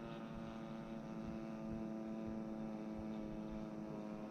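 Stinger 26cc two-stroke gasoline engine of a radio-controlled Beechcraft Staggerwing model airplane in flight, a faint, steady drone at nearly constant pitch.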